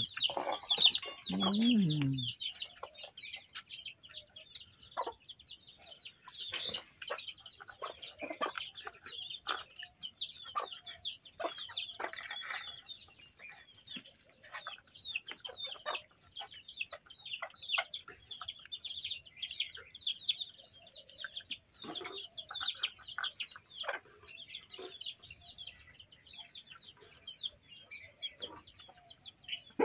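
Chicks peeping continuously in rapid high chirps, with scattered clicks and clinks of steel plates and bowls as people eat by hand.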